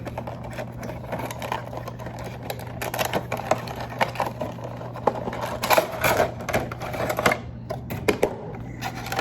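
Cardboard and plastic packaging of a Funko Pop vinyl figure being handled and opened: irregular clicks, crinkles and scrapes as the figure is taken out of its box, over a steady low hum.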